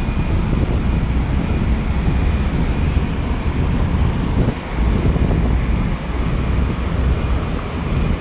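Wind buffeting a phone microphone: a loud, uneven low rumble.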